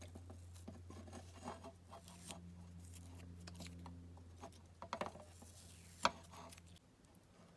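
Masking tape being peeled off a small die-cast model car body: faint rustling and crackling, with a few small clicks and one sharper tick about six seconds in. A steady low hum stops near the end.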